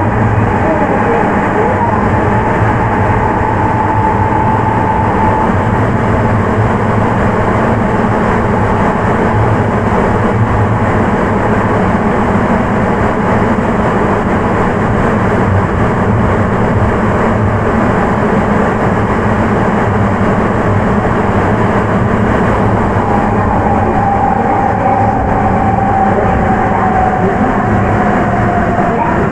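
Running sound inside a rubber-tyred Sapporo Municipal Subway 9000-series train with Hitachi IGBT drive, travelling through a tunnel: a steady loud roar. A thin whine fades out a few seconds in and comes back near the end, falling slowly in pitch.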